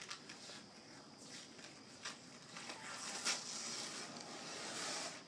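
Protective paper being peeled and torn off a basketball backboard: scattered crackles and rips, with a longer stretch of tearing from about three to five seconds in.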